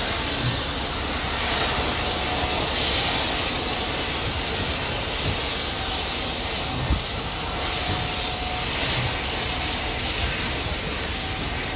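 Steam locomotive WMSR 1309, a 2-6-6-2 articulated Mallet, backing slowly: a steady hissing rumble of steam and running gear, with faint short tones coming and going and a single thump about seven seconds in.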